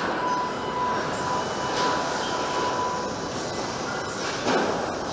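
Body-shop assembly-line machinery running: industrial robot arms and conveyors make a steady mechanical din, with a thin high whine for the first few seconds and a brief louder burst of noise about four and a half seconds in.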